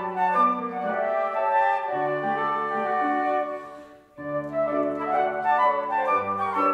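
Three concert flutes playing a classical piece in harmony with piano accompaniment. The music breaks off for a moment about four seconds in, then resumes.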